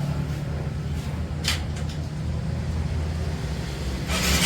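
Honda CB Shine 125 cc single-cylinder engine running with a steady low drone and a mechanical noise that the mechanic puts down to a worn timing chain; it gets louder and harsher about four seconds in.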